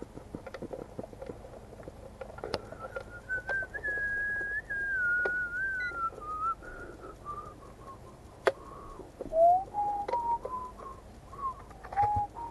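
A person whistling a slow tune, long held notes that drift from high down to lower ones, with scattered clicks and knocks from the drone's hard carrying case being handled, one sharp click about two-thirds of the way through.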